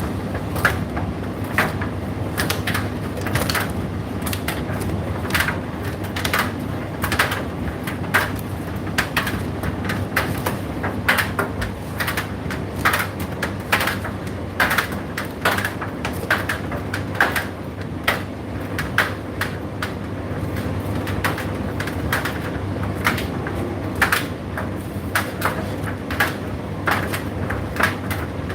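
Indesit IDC8T3 condenser tumble dryer running: a steady low machine hum with frequent irregular clicks and taps, a few each second.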